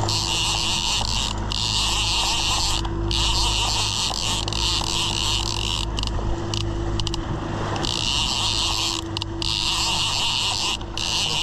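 Boat's outboard motor running steadily under a loud hiss of rushing water and wind. The hiss drops out briefly several times.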